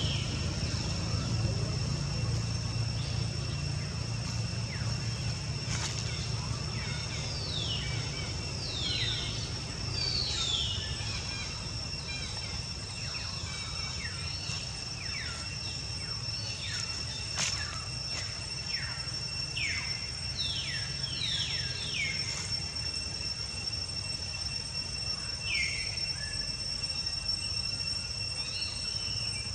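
Forest ambience: a steady high insect drone, with repeated short chirping calls that slide down in pitch, over a low rumble.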